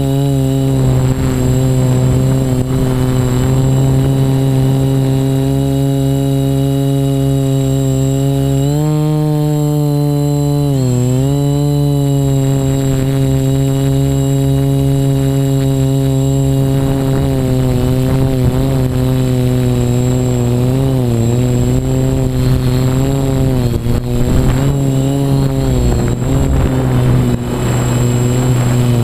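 A quadcopter's four electric motors and propellers buzzing steadily in flight, heard close from the onboard camera. The pitch rises about nine seconds in, dips briefly a couple of seconds later, and wavers up and down again in the second half as the throttle changes.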